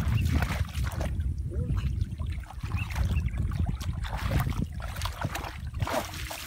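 Shallow muddy water sloshing and splashing as hands grope and stir through it, with a splash near the end as water is flung up by hand.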